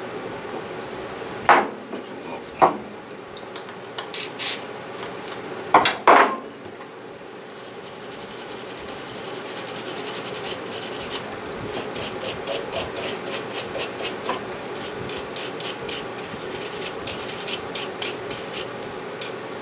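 A few knocks and clicks, then a nylon bristle brush scrubbing the bolt of a Kel-Tec SUB-2000 carbine in quick, even back-and-forth strokes, a few a second, through the second half.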